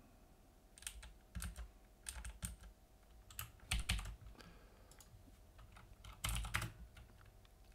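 Typing on a computer keyboard: short runs of key clicks with pauses between them.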